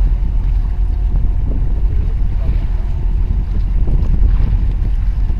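Wind buffeting the microphone in a steady low rumble, with harbour water sloshing against concrete breakwater blocks.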